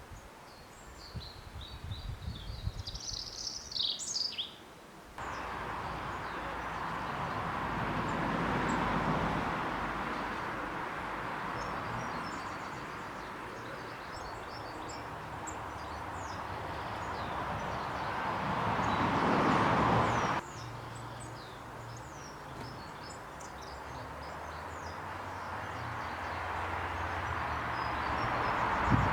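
Small garden birds chirping, with a loud flurry of calls in the first few seconds. After that, fainter chirps sound over a rushing noise that swells and fades, and the background changes abruptly twice.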